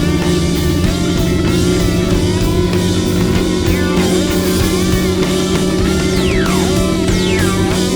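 Rock music with distorted electric guitar: sustained notes and a few quick downward slides near the end.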